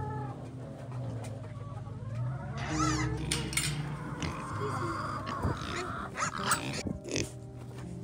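Kunekune pigs squealing, several short high calls in the middle, over low grunting.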